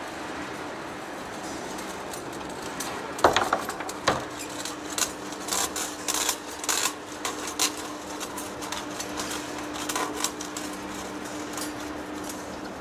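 Heavy-duty lathe cutting a large steel rotor shaft: a steady machine hum, then from about three seconds in a run of sharp metallic clicks and clinks, the loudest two first, as curled steel chips break away from the cutting tool. A steady humming tone joins about a second later.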